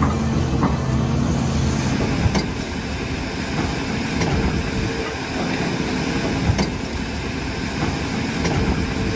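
Heavy machinery engine running steadily, with a few sharp cracks spaced a couple of seconds apart.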